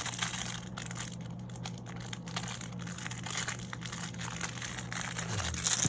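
Plastic packaging crinkling and rustling in the hands as a small figure is unwrapped, a run of irregular crackles with a louder burst near the end.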